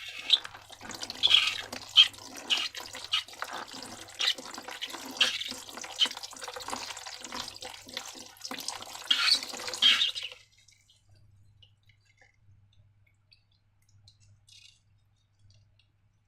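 Wet, crackly squishing of slime, full of small pops and drips, that stops about ten seconds in, leaving a few faint clicks.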